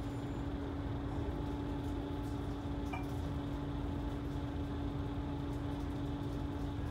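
Inside a moving coach: steady low rumble of the engine and road with an even hum.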